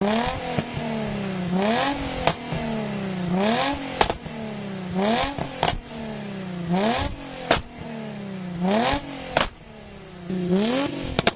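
Exhaust of a Stage 2-tuned 2012 Mercedes-Benz E350 V6, blipped up about six times in a row. Each rev rises quickly and falls back more slowly, with sharp pops and crackles from the exhaust as it drops.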